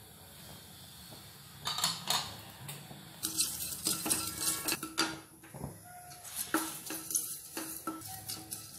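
Wooden spatula scraping and tapping against a metal kadai as it stirs cumin seeds being dry-roasted, in irregular strokes that begin about two seconds in.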